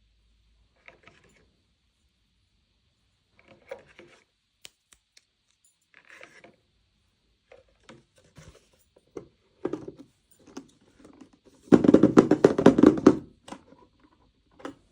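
Hands unboxing and handling small plastic miniature toys and their packaging: scattered soft rustles and taps, then a loud burst of dense crinkling and rattling lasting about a second and a half, near the end.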